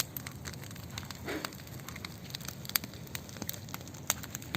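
Campfire burning, wood crackling with frequent sharp pops over a steady hiss of the flames.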